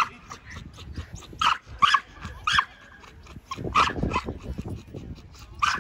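A dog barking repeatedly, about seven short, sharp barks at uneven intervals.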